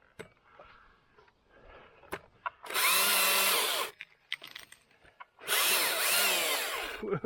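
Battery-powered Husqvarna T542i top-handle chainsaw run in two bursts of about a second each, whining at full speed as it makes its first cut into the poplar, the second burst dropping in pitch as the trigger is let off.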